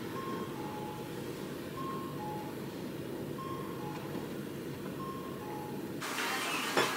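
City street hum with a pedestrian crossing signal's two-tone chime, a higher note then a lower one, repeating about every second and a half. About six seconds in it cuts to the hiss of monjayaki sizzling on a teppan griddle.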